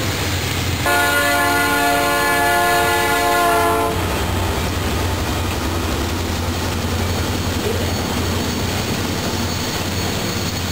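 Diesel freight locomotive's multi-chime air horn sounding one long blast of about three seconds, starting about a second in, over the steady rumble of the passing train. The rumble of locomotives and cars rolling by carries on after the horn stops.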